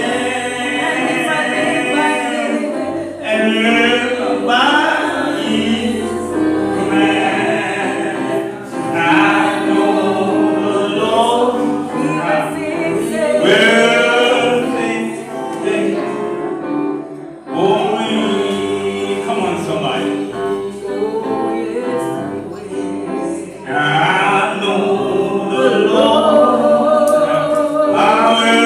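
Gospel song sung by a choir of voices in long held phrases, with a brief break about seventeen seconds in.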